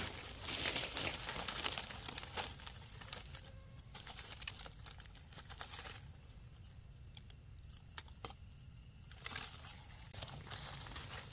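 Dry leaf litter and undergrowth rustling and crackling as someone moves and handles plants. It is louder in the first two seconds and again near the end, with scattered small snaps in a quieter stretch between.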